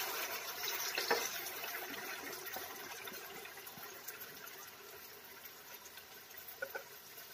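Chicken broth poured from a saucepan into a hot frying pan of chicken, potatoes and carrots, a splashing, hissing noise that fades away steadily over several seconds as the pour ends. A few light clicks near the end.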